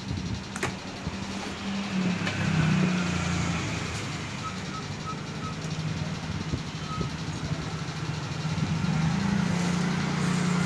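A low engine hum running steadily and shifting a little in pitch, growing louder near the end, with a few short high beeps about halfway through.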